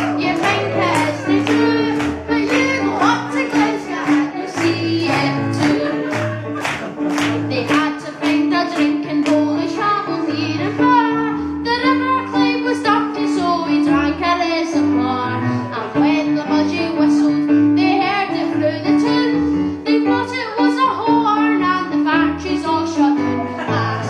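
A young male singer sings a song into a microphone over instrumental accompaniment with a steady beat.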